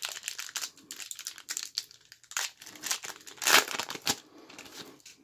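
Crinkly plastic wrapper of a 1990-91 SkyBox basketball card pack being torn open and crumpled in gloved hands: a rapid run of crackles, loudest about three and a half seconds in, dying down near the end.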